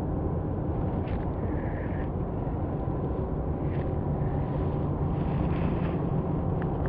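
Low, steady hum of an electric kayak trolling motor running at a constant speed, with a few faint ticks over it.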